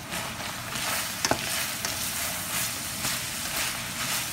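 Ground beef and peas sizzling in bacon grease in a hot metal skillet while a spoon stirs and scrapes through them. There is one sharp knock of the spoon against the pan about a second in.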